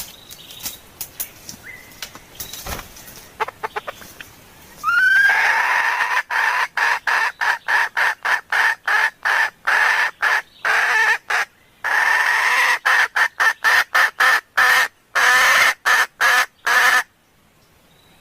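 Red junglefowl hen calling: after a few faint clicks, a long loud run of rapid, short clucking notes starts about five seconds in with a rising first note, broken by brief gaps, and cuts off suddenly about a second before the end. It is the hen's call that draws in wild cocks, used as a lure.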